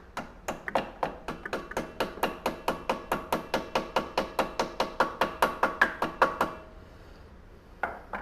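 A quick run of light hammer taps on metal, each with a short ringing tone, about five a second and speeding up slightly, driving the unloader valve's keeper into the pump casting. The tapping stops about six and a half seconds in, with one last tap near the end.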